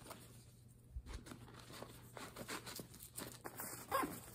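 Rustling and light clicks of gear being rummaged through in a sling pouch, as a small flashlight is pulled out; the handling gets busier in the second half.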